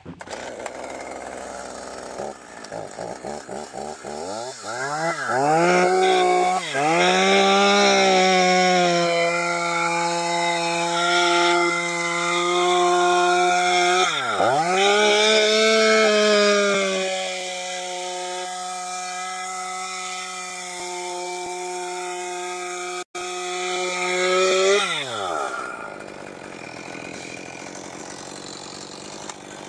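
Rebuilt STIHL MS201TC two-stroke chainsaw engine being started: it is pulled over a few times, catches about four seconds in, and is revved up to a high whine with several quick throttle drops. It then runs on steadily and more quietly before a last rev and cuts off near the end. It runs smoothly and strongly, a sign that the rebuild has restored compression.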